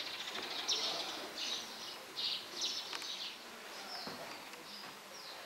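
Small birds chirping: a quick run of short, high, downward-sliding chirps several times a second, growing fainter and sparser after about three and a half seconds.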